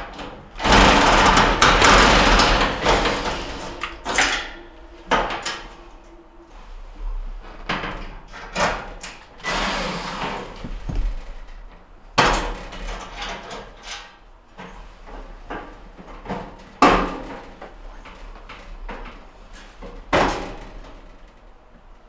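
Sheet-metal panels of a gas range being handled and screwed back on: a long scraping rattle in the first few seconds, then scattered sharp knocks and clicks, with short runs of a cordless drill-driver setting screws.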